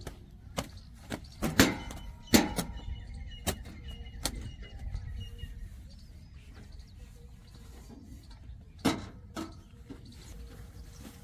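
Diesel engine of a JCB 3DX backhoe loader running with a low rumble, broken by a string of sharp knocks over the first few seconds and one more about nine seconds in.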